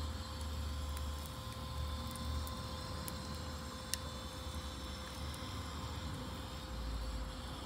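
Wind rumbling on the microphone over a faint steady hum, with a single sharp click about four seconds in.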